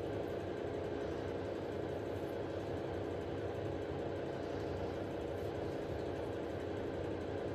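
Steady low mechanical hum with several held tones and a low rumble beneath, unchanging throughout.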